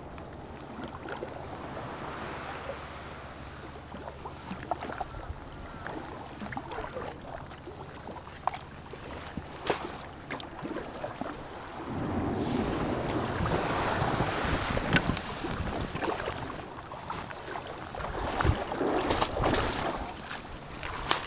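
Folding sea kayak paddled in to a pebble beach: paddle strokes and water lapping at the hull with small knocks. About halfway through it gets louder as small waves wash over the pebbles and the kayak comes up onto the stones.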